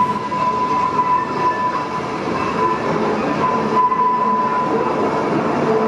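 Steam train rolling slowly into the station, a steady rumble of wheels on rails with a thin, steady squeal from the wheels on the curved platform track, joined by a lower squeal near the end.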